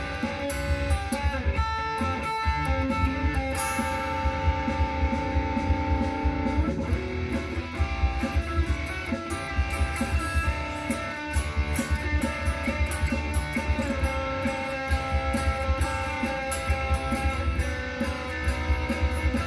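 Instrumental song intro: guitars playing over bass with a steady beat, before any singing.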